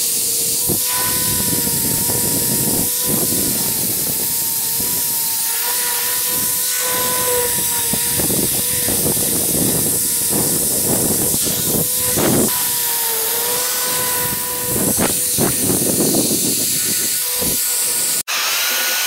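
Angle grinder with a wire cup brush scouring rust off an old steel knife blade: a loud, steady hiss of wire on metal over the grinder motor's whine, which wavers slightly as the brush is pressed on. Near the end the sound cuts off for an instant, then a higher motor tone takes over.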